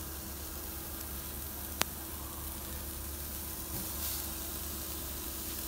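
Raw beef burger patties sizzling on the hot wire grate of a charcoal grill as they are laid over the coals, with one sharp click about two seconds in.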